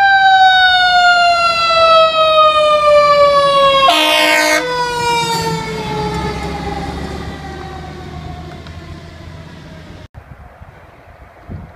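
Fire engine siren in one long wail sliding slowly down in pitch and fading as the engine passes, with a short air horn blast about four seconds in and the truck's engine rumble going by. The sound cuts off abruptly near the end to quieter street noise.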